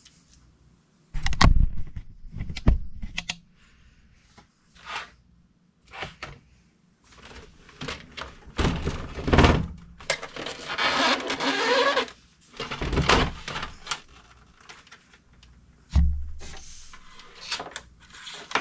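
Irregular knocks and thumps from an all-in-one computer being tilted and shifted on a desk and a power cord being handled behind it. There is a stretch of scraping and rustling in the middle and a heavy low thud near the end.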